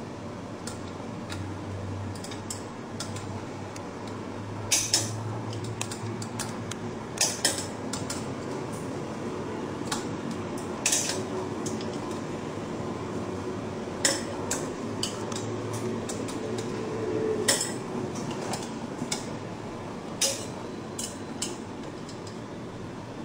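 Allen key and steel screws clicking and clinking against the metal plates of a vacuum laminating press as screws on its upper pressing plate are tightened: scattered sharp metallic clicks at irregular intervals.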